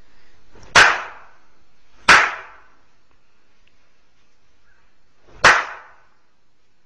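Three sharp, loud hand slaps: one near a second in, a second about a second later, and a third about three seconds after that, each with a brief ring-out.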